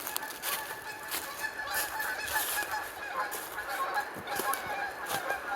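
A flock of birds calling, with many short, overlapping calls repeated throughout.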